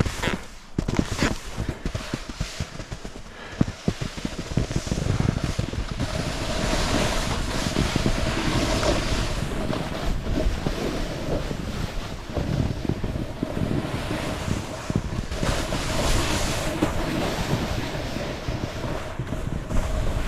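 Snowboard riding down a snowy slope with wind rushing over the microphone: a few sharp knocks and bumps in the first seconds, then from about six seconds in a steady rush of the board sliding on snow and wind.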